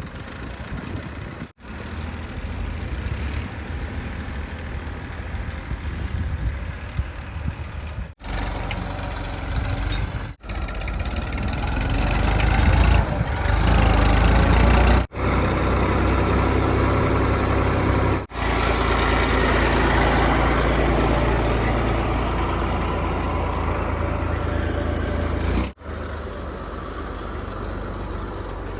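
JCB 3DX backhoe loader's diesel engine running under load while digging, rising louder in the middle. The sound breaks off abruptly and resumes several times.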